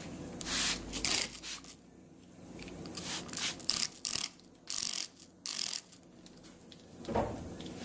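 Wet-sanding work on a car's clear coat: a series of short hissing strokes, two about half a second and a second in, then a quicker run of about seven in the middle, with a duller scuff near the end.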